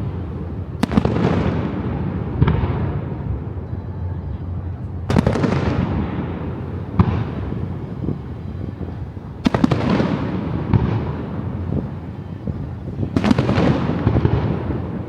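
Fireworks display: aerial shells bursting, about seven sharp bangs a second or two apart, each followed by a long rolling rumble that dies away.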